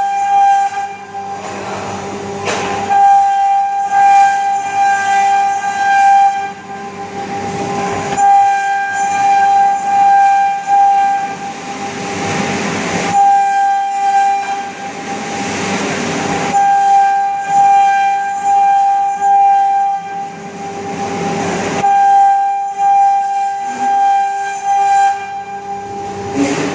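CNC router's water-cooled spindle running at a steady high whine while the bit cuts MDF, with a rushing cutting noise that swells and fades every few seconds.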